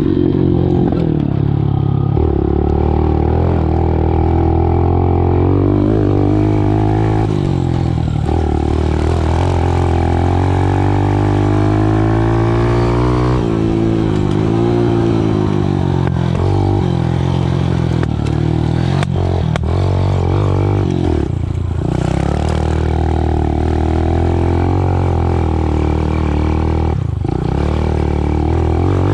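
A 110cc dirt bike engine revving up and down as it is ridden. The throttle is chopped briefly twice in the second half.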